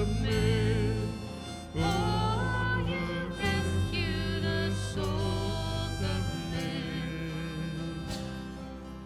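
Small worship band playing an instrumental break: a harmonica carries a wavering melody over strummed acoustic guitar.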